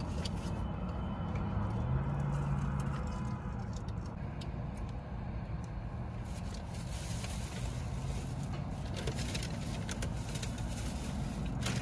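Steady low rumble inside a car's cabin, with a run of small clicks and rustles from handling a takeout box and a plastic drink cup.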